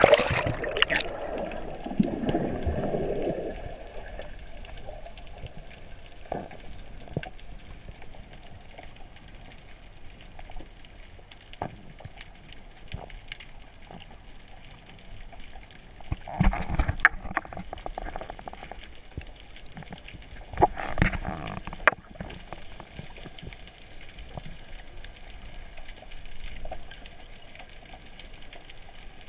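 Water heard underwater: a splash and rush of water as the camera goes under, then a steady muffled hiss with scattered clicks. Two short louder rushes of water come about 16 and 21 seconds in.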